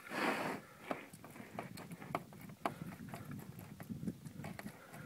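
Hand can opener cutting around the thin sheet-steel lid of a sealed 7.62x54R ammunition tin: irregular metallic clicks and ticks, a few a second, after a short hiss right at the start.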